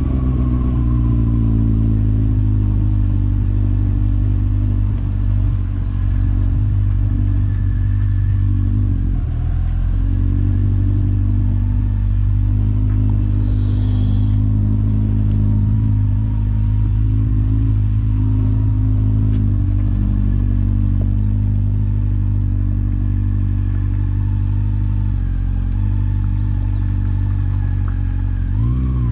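Motorcycle engine running at a steady pace while riding, with a brief break in the note about nine seconds in and a quick rise and fall in revs at the very end.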